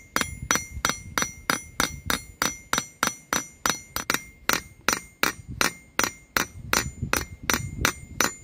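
Small hammer peening a steel rivet through the steel handle collar of a pickaxe, the head resting on a steel plate. Quick, even strikes at about three a second, each with a short metallic ring.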